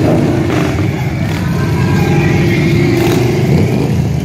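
A line of cruiser motorcycles riding slowly past one after another, their engines loud and steady.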